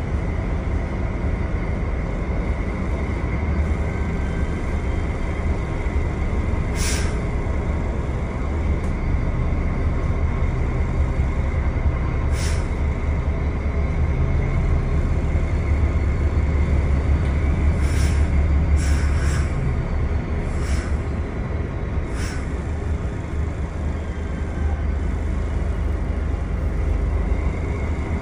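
Steady low rumble of marine engines alongside a ship's hull, with water churning at the waterline and a faint steady whine. Several short hisses break in between about a quarter and three quarters of the way through.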